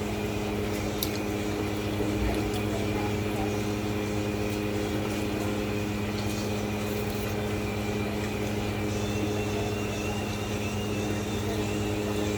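A steady low hum with several pitches throughout, with a few faint clicks.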